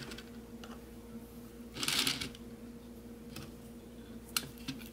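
Light plastic clicking and rattling from a 3D-printed circular sock knitting machine as its latch needles are advanced, with a louder brief clatter about two seconds in.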